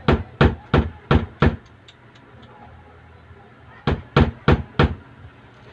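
Sharp knocks on the wooden stock of a homemade speargun, like hammering: five quick strikes about three a second, then a pause and four more near the end.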